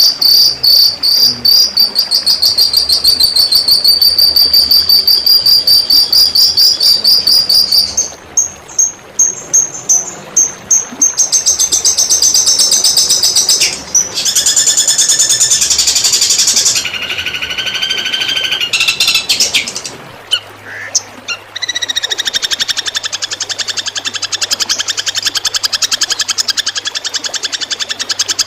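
Recorded songbird 'tembakan' song: rapid, machine-gun-like trills of high notes, several different birds' songs spliced one after another. A fast high trill runs for about the first eight seconds, then come sharper spaced notes, a dense burst, lower repeated notes, and from about 22 s a fast, even pulsing trill.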